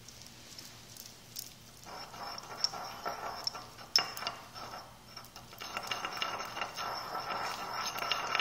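Porcelain pestle scraping and grinding around a porcelain mortar, mixing powders into a wet paste. Faint at first, with a few sharp clinks of pestle against bowl, then steadier, louder scraping from about halfway.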